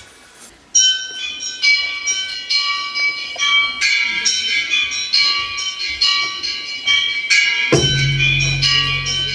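Dance music made of ringing, chime-like high notes struck one after another, starting sharply about a second in after a faint quiet opening; a deep low note comes in near the end.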